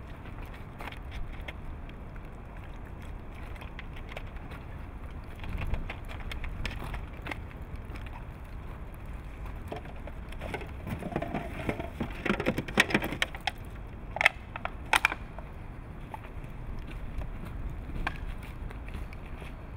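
Plastic garbage bags and cardboard rustling and crinkling as trash in a dumpster is rummaged through, loudest around the middle, with two sharp clacks shortly after, over a steady low background rumble.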